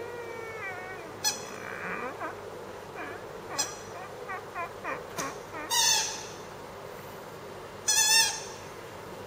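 A month-old Pomeranian puppy whimpering and squeaking in high, falling little cries, then giving two louder yips about six and eight seconds in while it plays.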